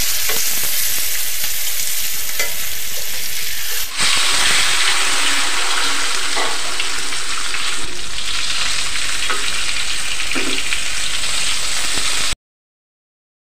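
Masala-coated fish shallow-frying in hot coconut oil in a stainless steel pan, on its second side after being turned: a steady, dense sizzle with scattered pops. There is a brief dip about four seconds in, and the sound cuts off suddenly about a second before the end.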